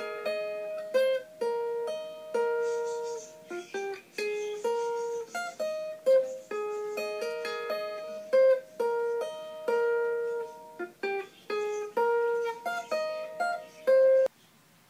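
Steel-string acoustic guitar played fingerstyle: a melody of single plucked notes, with some notes sounding together, a few per second. The playing cuts off abruptly shortly before the end.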